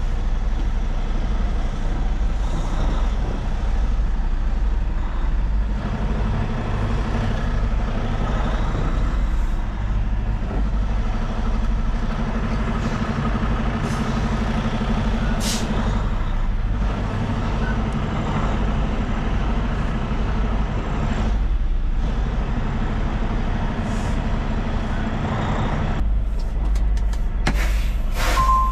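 Semi truck's diesel engine running at low speed, heard from inside the cab while the truck is manoeuvred into a tight spot, swelling now and then as the driver gives it throttle. A couple of brief sharp noises come about halfway through, and a cluster of them near the end.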